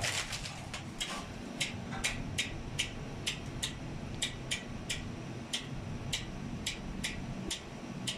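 Hand winch cranked to hoist a split air-conditioner outdoor unit on a rope, its ratchet giving a steady run of sharp clicks, about two and a half a second.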